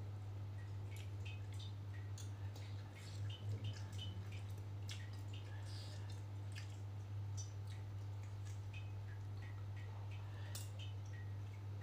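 Close-mic eating sounds: wet chewing and lip smacks with scattered small clicks of a metal spoon and fork, over a steady low hum.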